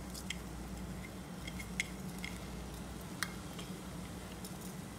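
A few faint, sharp clinks of a small steel bowl knocking against a stainless steel pressure cooker as soaked millet is tipped and tapped out into it, over a steady low hum.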